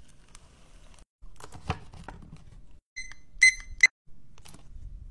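A few soft taps from handling, then three short electronic beeps in quick succession from a small gadget, the last two the loudest.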